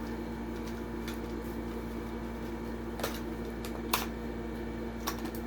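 A few short, sharp clicks of a Hot Wheels plastic-and-cardboard blister pack being pried open, the loudest about four seconds in, over a steady low hum in the room.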